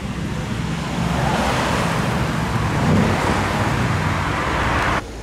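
Mercedes-AMG GT R's twin-turbo V8 driving past, its exhaust note growing louder from about a second in and peaking around three seconds. The sound cuts off abruptly near the end.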